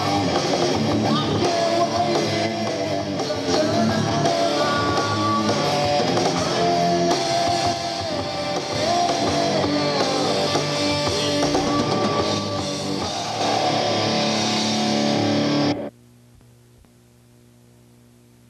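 Rock band playing with electric guitars, drums and a male singer. The music cuts off abruptly about sixteen seconds in, leaving only a faint steady hum.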